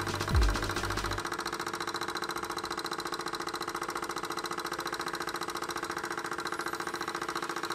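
Lamina-flow hot-air engine with a computer hard-drive flywheel running fast and steady at about 865 RPM, giving a rapid, even pulsing in step with its turning. In the first second there is a deep bass thump of background music.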